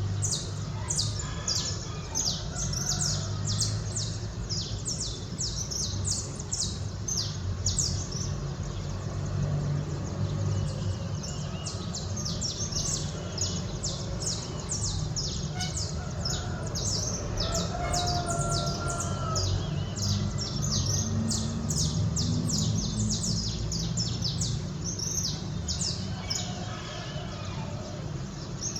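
Many small songbirds chirping at dawn, a dense run of short, high chirps several a second that continues without a break, over a low steady rumble.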